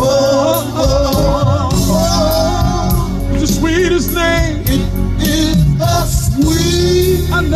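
Male gospel vocal group singing long, wavering vocal lines over steady instrumental backing with a low bass.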